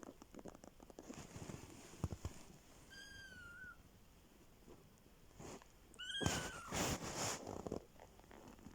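A kitten mewing twice, thin high-pitched mews about three seconds in and again about six seconds in, the second followed by a couple of seconds of loud rustling.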